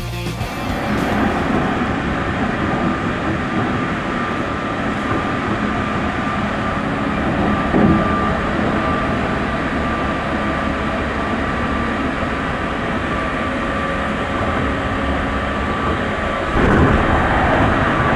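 Train running, a steady rumble and rush with a faint constant whine, likely a rail journey into Yokohama Station. There is a single knock about eight seconds in, and the noise grows louder near the end.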